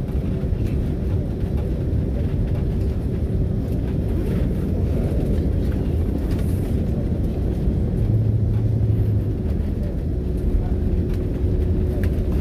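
Cabin noise inside an Airbus A330-200 airliner during its landing: a steady low rumble, with a faint steady hum over it and a brief deeper hum about eight seconds in.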